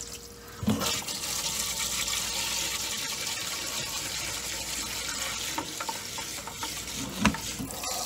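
Tap water running steadily into a plastic pet-fountain bowl in a stainless steel sink, filling it with soapy water. A knock comes about a second in and a louder one near the end.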